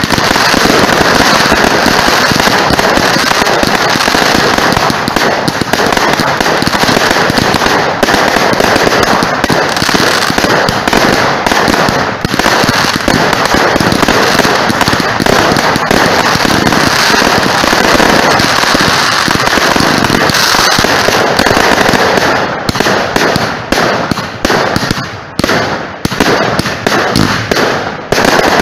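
Fireworks going off in a dense barrage: continuous rapid bangs and crackling, loud throughout. In the last several seconds the barrage thins into separate bangs with short gaps between them.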